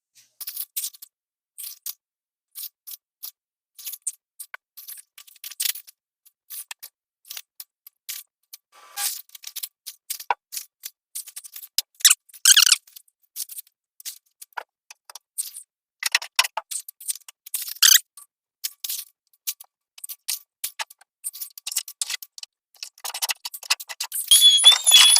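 Irregular crinkling, rustling and light clatter of a plastic trash bag and debris being handled, in short scattered bursts. Near the end a denser hiss with a thin, steady high whine sets in.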